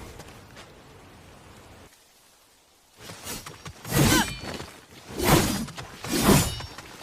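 Odachi sword combat sound effects. A metallic ringing fades out, and after a short pause come three swooshing sword swings about a second apart, each with a bright metallic ring.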